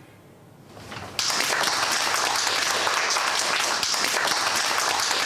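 Audience applauding, breaking out suddenly about a second in after a short quiet.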